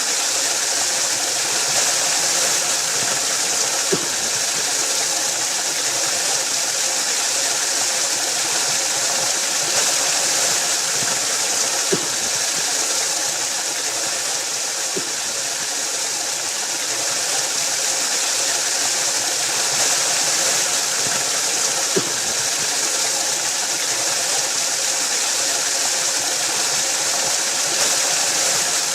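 Waterfall: a steady, even rush of falling water, with a few brief sharp ticks of splashing water.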